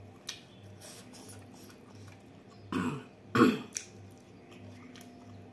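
A woman clearing her throat with two short coughs about half a second apart, a little after halfway through, the second the louder, among faint clicks of eating.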